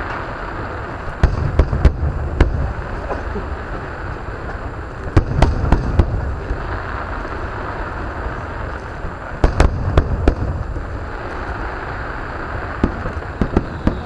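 Aerial fireworks bursting: clusters of a few sharp bangs with low booms, about every four seconds, over a steady background hiss and rumble.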